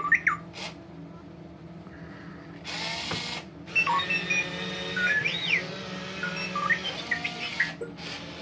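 Radio-controlled R2-D2 toy playing its electronic beeps and warbling, gliding whistles through its speaker, after a short burst of hiss about three seconds in, over a steady low hum.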